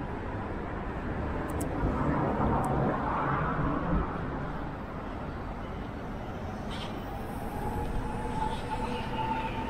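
Steady road-traffic noise that swells and eases about two to four seconds in, like a vehicle going by. A faint steady whine comes in near the end.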